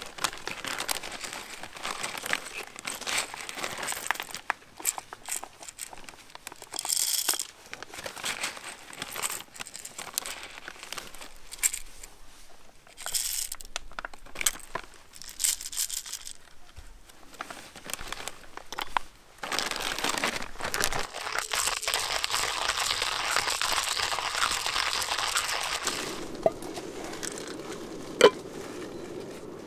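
Plastic zip-lock bag crinkling and rustling as it is handled and whole coffee beans are poured from it into a hand coffee grinder. Later comes a denser, steady rough noise lasting several seconds.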